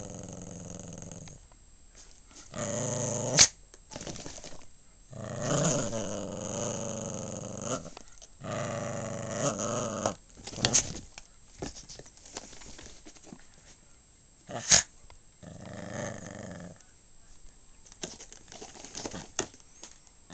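Small dog growling in several bouts while playing tug-of-war with a plush toy: a play growl. A few sharp clicks stand out above the growling.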